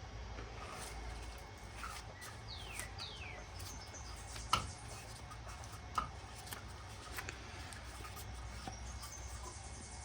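Sparse light clicks and taps of small metal furnace pilot-burner parts being handled, the loudest about four and a half seconds in, with two quick falling squeaks near the three-second mark.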